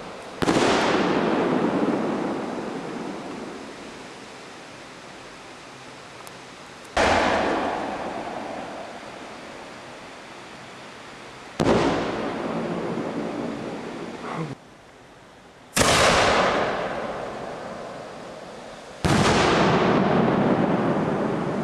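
Homemade aerial firework shells going off: five loud, sudden bangs a few seconds apart, each followed by a long fading echo.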